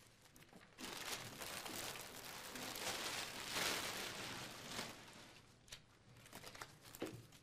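A plastic bag and papers rustling and crinkling as someone rummages through them, loudest about three to four seconds in, then tailing off into a few lighter rustles.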